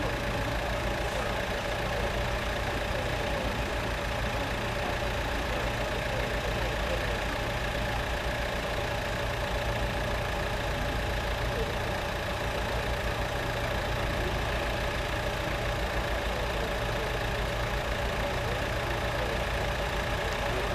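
Diesel engines of a CrossCountry Voyager train idling steadily as it stands waiting to depart, a constant low rumble with a steady hum.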